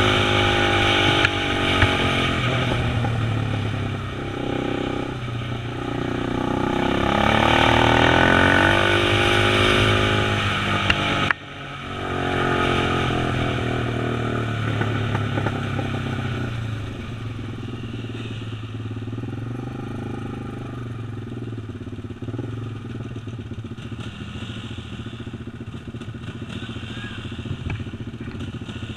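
Quad (ATV) engine running under way, its revs rising and falling with the throttle; the revs cut off sharply about eleven seconds in, then the engine runs lower and quieter as the quad slows.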